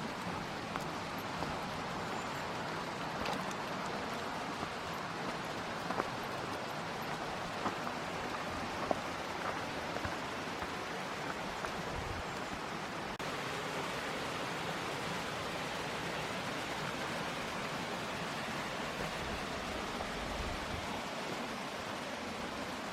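Steady rushing of falling water, an even hiss with a few faint clicks in the first half.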